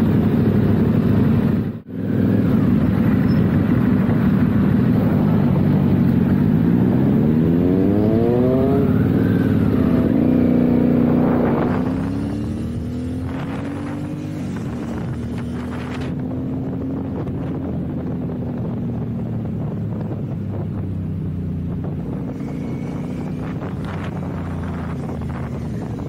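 Motorcycle engine heard from the rider's seat under a loud rush of wind: the engine note climbs steadily as the bike accelerates, then about halfway through the rush drops away and the engine runs at a lower, steadier pitch that rises and falls gently. There is a brief dropout about two seconds in.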